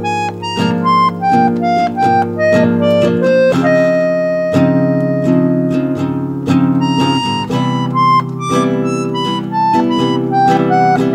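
Instrumental background music: a slow melody of single notes moving over held chords.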